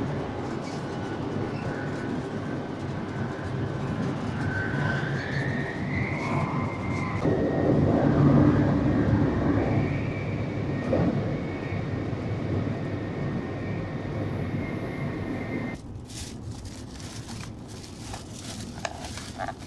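Running noise of a Tokaido Shinkansen bullet train heard in the vestibule between cars: a dense rumble with a steady high whine that rises in pitch about five seconds in, swelling louder around eight seconds. About sixteen seconds in it drops to a quieter cabin hum, and a plastic carrier bag crinkles as it is opened around a boxed bento.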